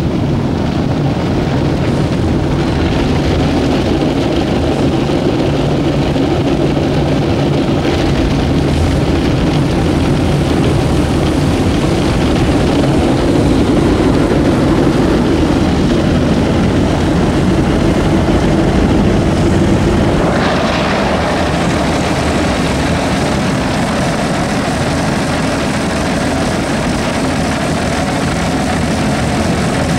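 Automatic rollover car wash heard from inside the car: rotating brushes scrubbing over the windscreen and body over a steady drone of the machine and water. The sound shifts about twenty seconds in.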